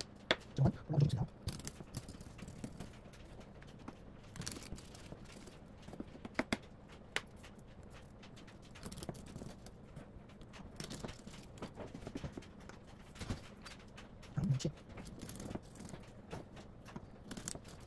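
Kitchen knife and raw rockfish fillets on a wooden cutting board: scattered light taps and knocks of the blade and fish against the board as the fillets are cut and moved. Two short low sounds stand out, about a second in and near the end.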